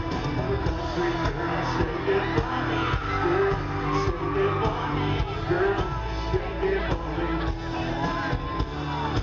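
Live country-rock band and singer playing loudly through a concert sound system, with the crowd whooping and shouting along.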